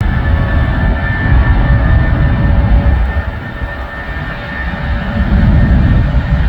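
Jet airliner engines at takeoff power: a heavy low rumble with a steady high whine, easing briefly about halfway through and then building again.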